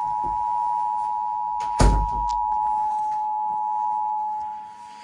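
Emergency Alert System two-tone attention signal: a steady dual tone (853 and 960 Hz) that comes before the spoken alert message. A single sharp thump cuts across it about two seconds in.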